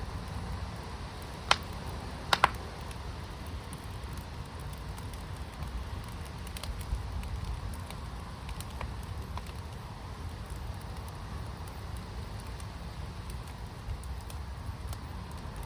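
Firepit fire crackling steadily over a low rumble, with a sharp pop about a second and a half in and a quick double pop just after.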